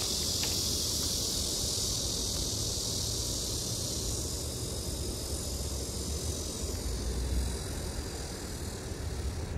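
Steady, high-pitched chorus of cicadas buzzing, over a low rumble.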